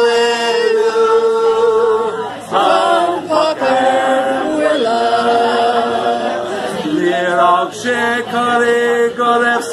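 A small group of men's and women's voices singing a song together unaccompanied, with some long held notes.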